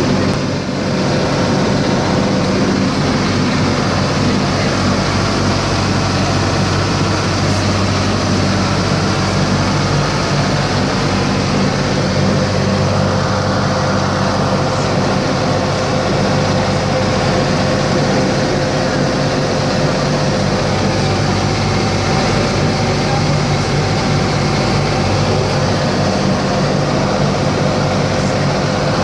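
Ferryboat under way: its engines running with a steady low drone and a steady hum above it, over water rushing and foaming along the hull.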